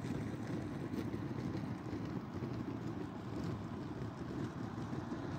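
A steady low rumble of street traffic as a city bus approaches from down the road.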